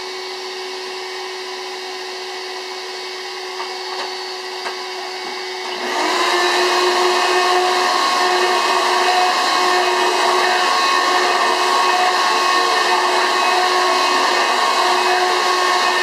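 Upright vacuum cleaner running, a steady motor whine and hiss that turns much louder about six seconds in, with a brief rise in pitch.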